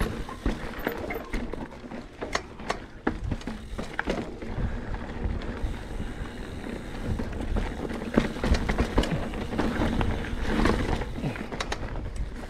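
Mountain bike riding over a rocky trail: irregular clicks and knocks of the tyres, chain and frame rattling over the rocks, over a steady low rumble of wind on the microphone.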